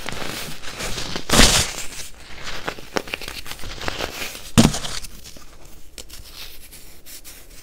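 Hands crushing and crumbling chunks of a cup-shaped baking soda mould, a dry crunching and crackling. There is a loud crunch about a second and a half in and another near five seconds, then smaller, quieter crackles.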